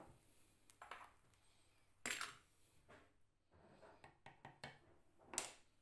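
A handful of short, light metallic clinks and scrapes as a copper Turkish coffee pot (cezve) is lifted off the copper stove's pot stand and handled. The loudest comes about two seconds in, with another near the end.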